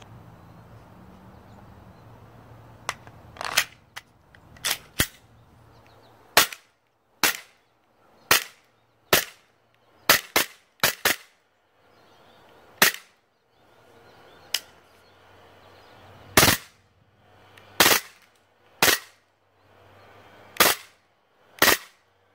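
APS Shark CO2 gas-blowback airsoft pistol firing around twenty sharp shots, one at a time at uneven intervals, with a few quick pairs.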